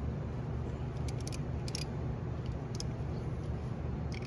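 A hand wrench clicking a few times against metal as a bolt is tightened, the clicks scattered from about a second in, over a steady low hum.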